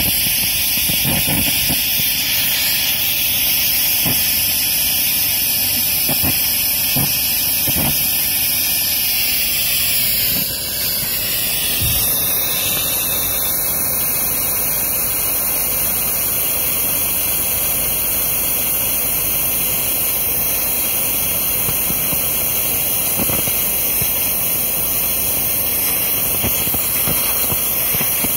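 An oxygen–PMMA (acrylic) hybrid rocket motor with a converging-diverging de Laval nozzle is firing continuously with a loud, steady hiss as gaseous oxygen burns the acrylic fuel grain. The sound dips briefly and shifts about ten seconds in, then runs steady again.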